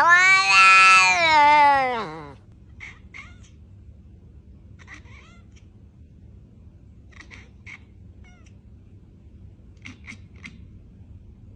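A cat gives one long, loud meow lasting about two seconds that drops in pitch at the end, followed by short, faint chirping mews every couple of seconds.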